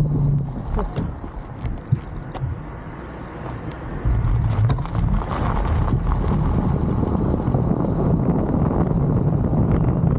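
Wind buffeting the microphone on a moving vehicle: a steady low rumble that eases off about a second in and comes back strongly about four seconds in, with a sharp knock about two seconds in.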